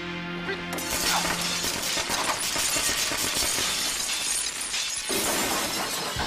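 Film sound effects of glass shattering: a long, continuous crash of breaking glass and falling debris that grows brighter about five seconds in, with sustained music notes under the opening second.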